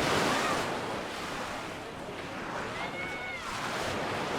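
Mediterranean surf on a sandy beach: a steady wash of waves swelling and easing. Faint short calls rise and fall just after the start and again about three seconds in.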